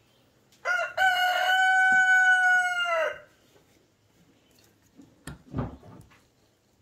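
Rooster crowing once, a single long call of about two and a half seconds that holds its pitch and drops at the end. A few short, quieter knocks follow about two seconds later.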